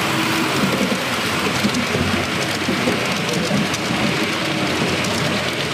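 HO-scale model trains rolling past on the layout's double track: a steady rushing rattle of small metal wheels on rail, with no pause or change.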